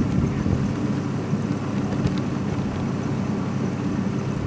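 Wind blowing steadily in a snowstorm, with a constant low hum underneath.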